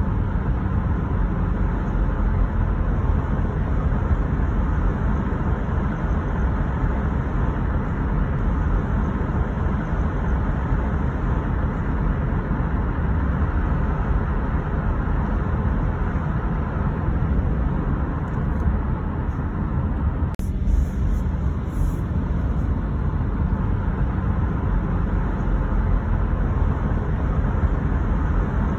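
Car driving along a city road: steady rumble of tyres and engine, with a brief break in the noise about twenty seconds in.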